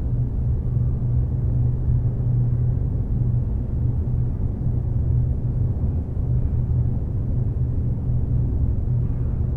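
A steady low rumbling drone that holds an even level without change.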